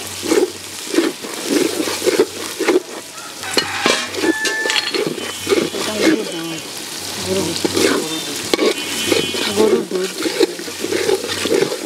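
Metal spatula scraping and stirring chicken masala around a large aluminium pot in quick, regular strokes, over the steady sizzle of frying spices.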